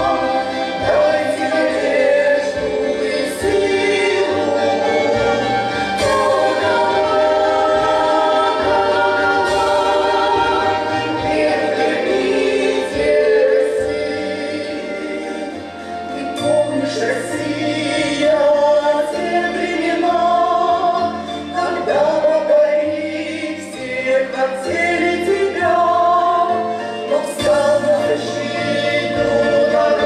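A female vocal trio singing a song in harmony, with long held notes, over a low bass part that steps from note to note underneath.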